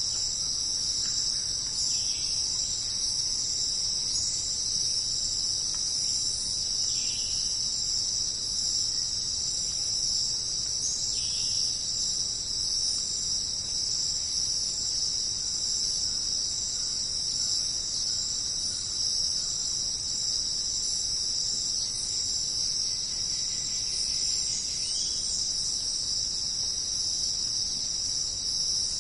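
Dense, steady, high-pitched insect chorus of cricket-like trilling in a jungle ambience, with a few brief fainter calls at scattered moments. No thunder sounds here.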